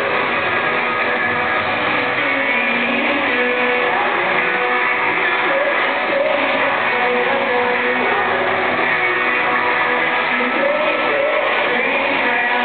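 Pop-rock band playing live, electric guitars to the fore, with a singer's voice carrying the melody over it.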